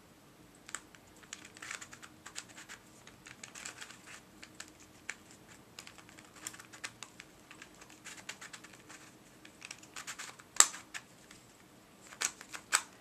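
Plastic layers of a Master Pyramorphix puzzle clicking as it is turned by hand, an irregular run of light clicks with one sharper click about ten and a half seconds in.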